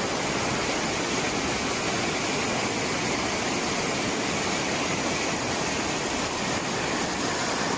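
Muddy floodwater rushing through a flooded street as a fast torrent, making a steady, unbroken rushing noise.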